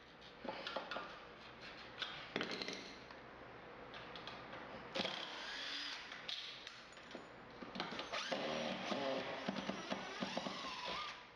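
DeWalt cordless drill/driver running in several spells, backing screws out of a metal shower-door frame fixed to a tiled wall, with scattered clicks.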